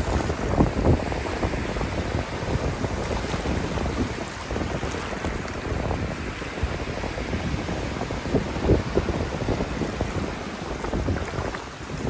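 Ocean surf washing up and foaming over a shallow sand beach at the water's edge, swelling and easing as the waves come in, with wind buffeting the microphone.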